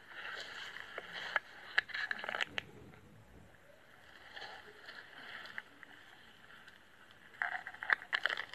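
Handling noise at a body-worn camera: rustling with several sharp knocks about a second in and again near the end, as a chub is held in both hands and lowered to the water's edge.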